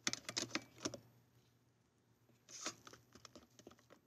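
Wooden rice paddle scooping cooked rice out of an electric rice cooker's pot into a bowl: faint light taps and scrapes in two short clusters, with a pause between them.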